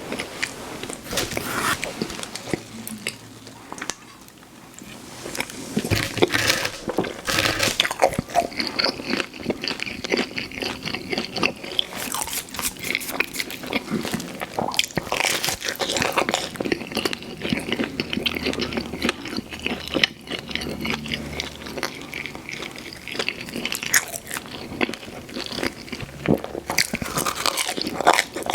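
Close-miked mouth sounds of a person eating pizza: crunchy bites into the crust and steady, wet chewing, with a short lull about four seconds in.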